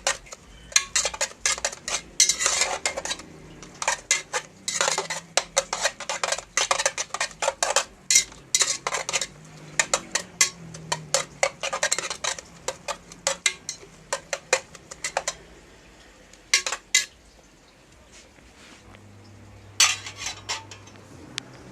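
A cooking utensil stirring okra in a pot, clinking and scraping against the pot in quick, irregular strokes. The strokes are dense at first, thin out after about 15 seconds, and come back briefly near the end.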